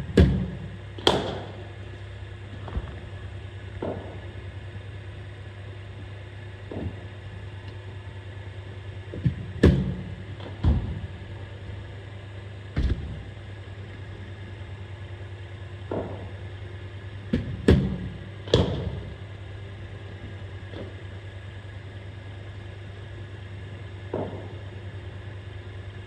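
Cricket bowling machine humming steadily while sharp knocks come at irregular intervals, some in quick pairs: balls fired from the machine, struck by the bat and hitting the nets or walls.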